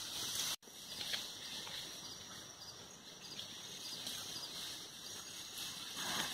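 Woodland ambience: a steady high hiss with faint bird chirps. Right at the end a dog starts to howl, its voice falling in pitch.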